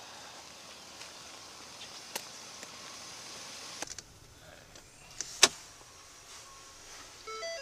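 Climbing into the cab of a Ford truck: a few faint outdoor clicks, then the door shuts just before four seconds in and the outdoor noise drops away. About a second and a half later there is one sharp click inside the cab, the loudest sound, and a short run of stepped electronic tones starts near the end.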